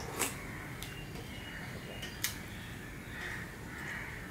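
Close-up eating sounds of curry being slurped and licked off a steel plate, with two sharp mouth clicks, one just after the start and one about two seconds in.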